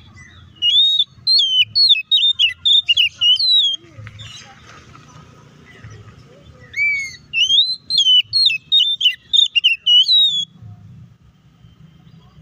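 Oriental magpie-robin (kacer) singing two fast, loud phrases of sliding whistled notes, the second starting about halfway through. This is the hot, excited kacer song used as a lure to provoke other magpie-robins into answering.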